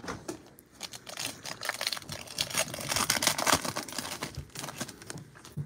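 Foil wrapper of a Panini Mosaic football card pack crinkling and tearing as it is ripped open by hand: a run of crackles, thickest in the middle.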